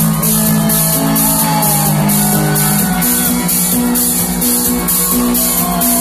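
Live electronic techno played loud over a festival sound system: a steady beat about twice a second over a sustained bass line that shifts pitch every second or so.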